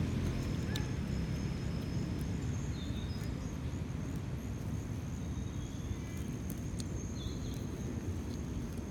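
Outdoor ambience: a low steady rumble, a thin high insect drone that grows stronger about three seconds in, and a few short bird chirps.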